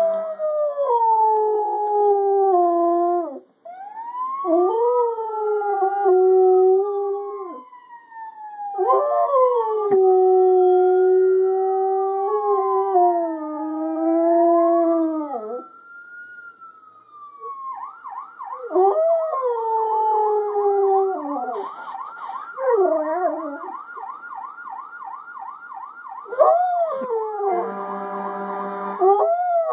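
Siberian husky howling in long sliding howls with short breaks, answering a siren that rises and falls slowly and then switches to a fast warble about two-thirds of the way through.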